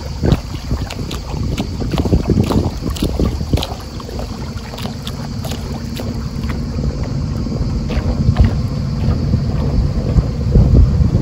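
Wind buffeting the microphone aboard a small wooden boat under way on a lake, a gusty low rumble. A faint steady engine hum runs underneath, with scattered small splashes and knocks.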